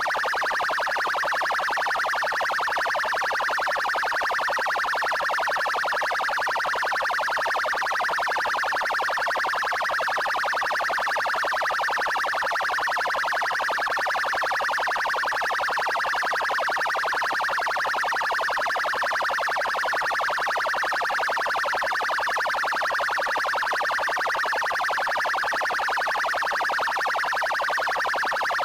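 Paraná military police (PMPR) car siren sounding its 'trail' tone: a continuous, rapidly pulsing wail that holds steady without a break.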